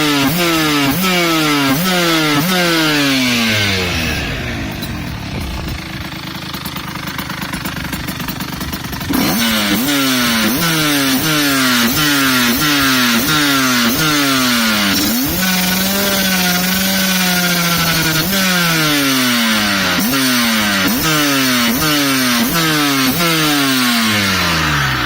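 Tuned two-stroke engine of a Fantic Caballero 85 (Top 85 kit, Dell'Orto 26 VHST carburettor, Top Performance exhaust) revved in quick repeated throttle blips, each one rising and falling in pitch. It drops to a quieter low running for about five seconds, then blips again, holds a steady rev for a couple of seconds in the middle, and goes back to blipping.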